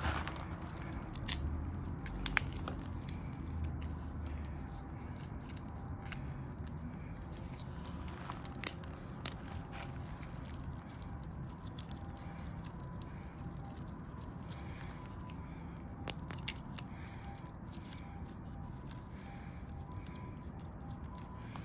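Small fire crackling in a micro stove: scattered sharp pops and snaps over a low, steady hiss.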